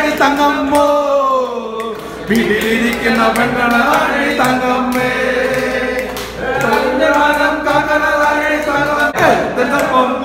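Men singing a song together informally, long drawn-out wavering notes with short breaks between phrases, with a few sharp taps mixed in.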